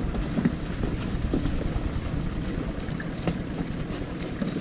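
Boat engine idling steadily in neutral, with a few light knocks.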